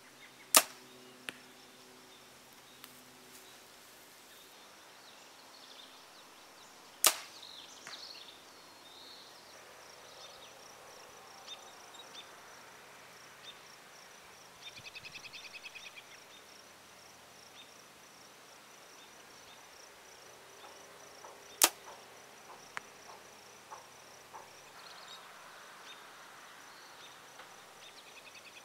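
PSE NXT Evo 33 compound bow shot three times, each release a sharp snap: near the start, about seven seconds in and about twenty-one seconds in. Fainter knocks follow the shots, the arrows striking foam 3D targets. Insects and birds sound faintly in the background.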